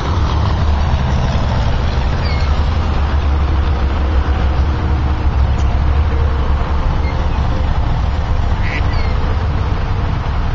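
Mallard ducks giving a few short quacks over a steady low rumble.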